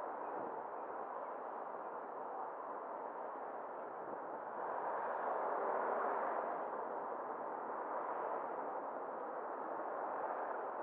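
Steady road and wind noise from a car driving slowly along a town street, swelling a little around the middle.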